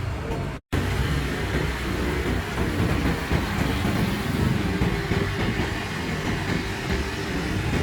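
A large bus engine running with a steady low rumble. The sound drops out briefly less than a second in.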